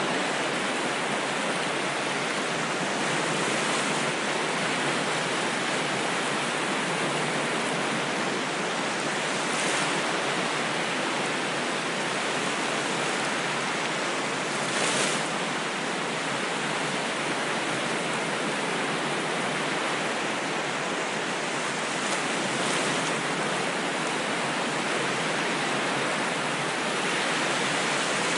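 Ocean waves breaking and washing on a shore: a steady rush of surf with a gentle swell every few seconds, the strongest about halfway through.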